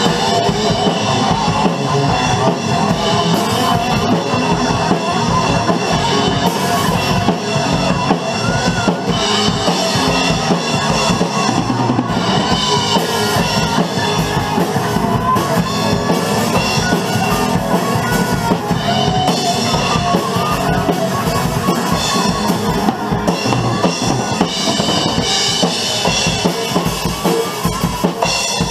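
Rock drum kit played hard and fast, with rapid bass drum strokes, snare hits and crash cymbals, over a rock song with guitars.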